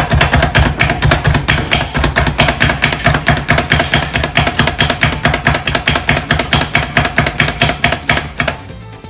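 Hand-pumped plunger food chopper chopping lemon peel on a wooden cutting board: quick, even strokes, about seven a second, stopping near the end.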